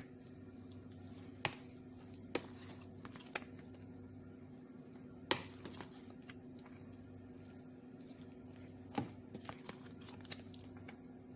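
Scattered light clicks and knocks of kitchen utensils being handled, irregular and a second or more apart, over a steady low hum.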